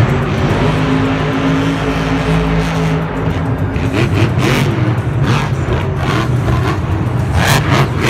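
A monster truck's supercharged engine running loud and revving, its note held steady for a couple of seconds and then rising and falling, with several bursts of high-pitched noise in the second half.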